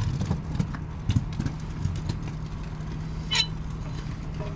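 A few light knocks, then about three seconds in a short high squeak from the UAZ Patriot's wheel, the squeak being hunted at the brake disc, against a steady low hum.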